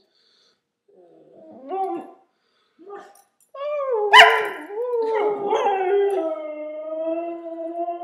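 Siberian husky 'singing': a few short wavering whines and yips, then a long howl about halfway through that wavers up and down in pitch and settles into a steadier held note near the end.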